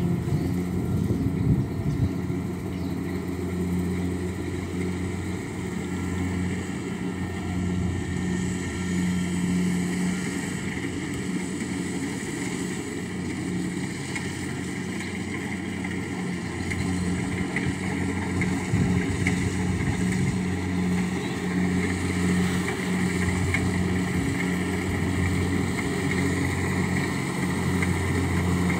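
Rice combine harvester's engine running steadily with a constant low hum while the machine cuts and threshes standing paddy.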